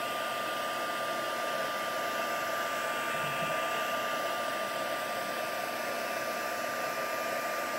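Handheld craft heat tool (embossing heat gun) blowing steadily, drying wet watercolour paint on a card: an even rush of air with a thin, steady whine.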